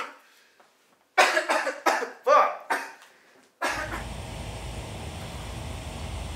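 A man coughing hard: the tail of one cough, then about a second in a fit of several harsh, rasping coughs. Just over three and a half seconds in, the sound cuts to a steady outdoor background rush with a low rumble.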